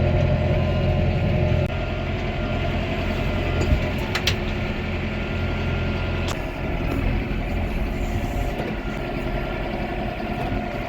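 Farm tractor engine running steadily, easing off slightly about two-thirds of the way through, with a few sharp clicks or knocks.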